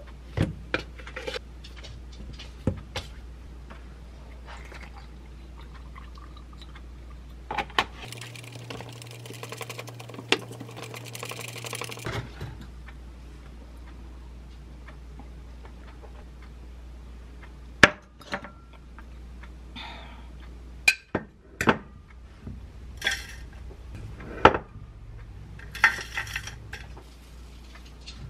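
Making a protein shake by hand: a plastic scoop knocking against a powder tub and a glass, then about four seconds of milk pouring into the glass. Later come scattered clinks and knocks of a glass and containers set down on the counter.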